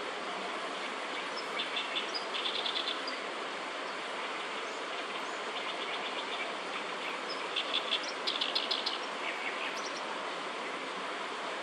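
Oriental reed warbler singing: two bursts of rapid repeated chattering notes, one about two seconds in and a longer one about seven and a half seconds in, over a steady background hiss.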